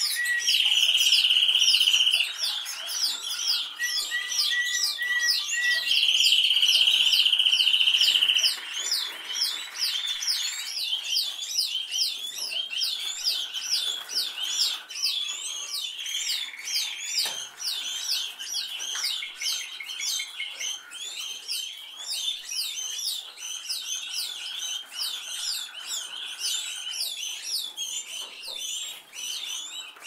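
Canary singing: a continuous stream of rapid, high, repeated chirping notes. Twice in the first eight or so seconds it breaks into a loud, sustained, even trill.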